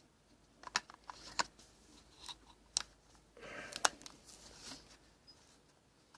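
A camcorder's battery being fitted by hand: a few sharp plastic clicks spread over several seconds, with rustling handling noise in the middle.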